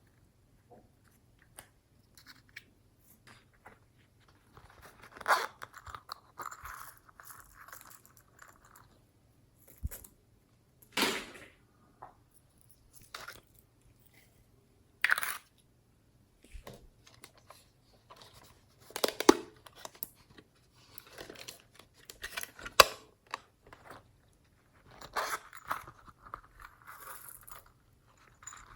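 Slime being worked by hand: short crackling, squishing bursts come and go, with quiet gaps between them.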